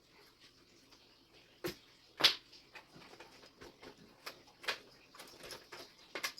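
Scattered clicks, taps and rustling of cables being routed and pushed through a computer case, with one sharper tap about two seconds in.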